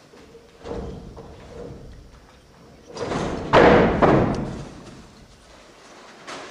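Thumps on a theatre stage: one thud about two-thirds of a second in, then a louder cluster of knocks and scraping about three to four seconds in, as actors move about and handle props on the boards.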